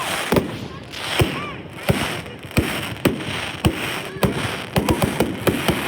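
Fireworks going off: a string of sharp bangs, one every half second to a second or so, then a quick run of crackling pops near the end.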